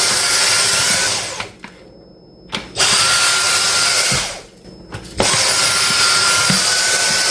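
Vacuum cleaner running in three short spells, each starting suddenly and tapering off, a steady rushing hiss with a faint whine, as it sucks loosened grout and dust out of the countertop–backsplash joint.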